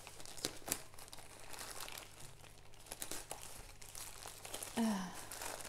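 Plastic packaging crinkling and rustling in irregular crackles as it is pulled open by hand.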